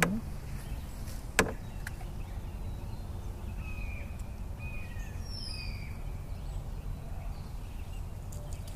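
Birds chirping intermittently over a steady low rumble, with one sharp click about a second and a half in.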